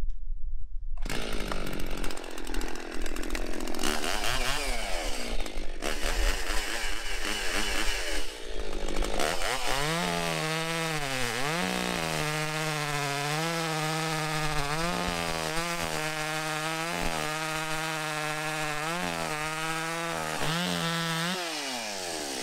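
Petrol chainsaw starting about a second in and then cutting through an ironbark log. Its engine note dips again and again as the chain bites into the wood, and falls away near the end as the throttle is released.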